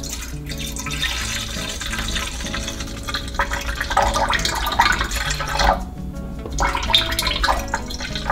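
Milk pouring in a thin stream from a carton into a stainless steel dough-mixer bowl, splashing into the milk already there. The pour gets louder about four seconds in and stops right at the end.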